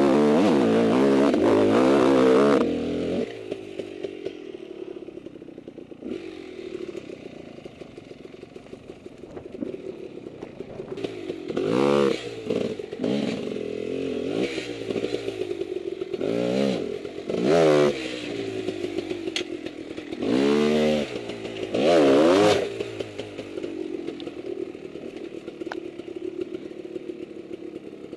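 Husqvarna WR300 two-stroke dirt bike engine, revving hard for the first few seconds, then running at low revs with short bursts of throttle every few seconds while picking through rocks.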